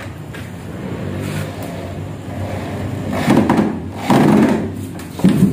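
Corded electric drill driving screws through a plywood panel into a wooden boat frame, running in three short loud bursts in the second half.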